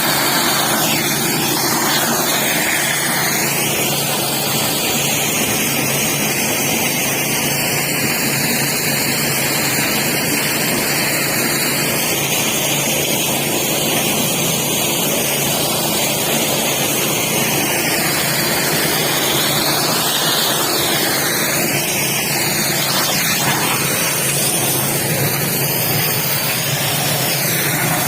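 A motor running steadily under a continuous rushing noise, with the pitch of the rush shifting slowly.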